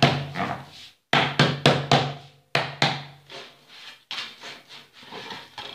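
Jowar roti dough being patted flat by hand on a wooden board: quick runs of palm slaps, each knocking on the wood, about four or five to a second, in two bursts over the first three seconds. Softer, scattered taps follow.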